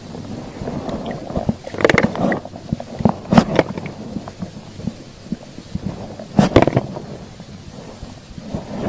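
Footsteps and scrambling over wet rocks: shoes scraping and knocking on stone, with clothing and gear rustling. There are irregular sharp knocks, the loudest about two, three and a half and six and a half seconds in.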